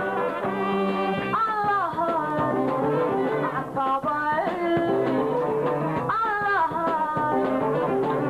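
Live Somali song: a woman sings over band accompaniment with drums, twice holding a high note that slides down.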